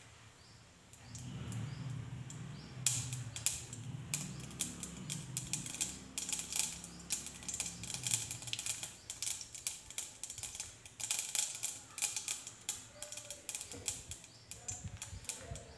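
Mustard seeds spluttering in hot oil in a nonstick pan, a fast, irregular crackle of small pops and clicks that starts about three seconds in. The spluttering is the sign that the oil is hot enough for tempering.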